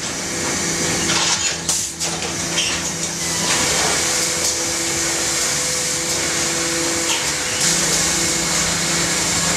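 Automatic cement bag-packing machine running, filling plastic cement bags: a steady, loud rushing hiss over a low motor hum, changing in tone a couple of times.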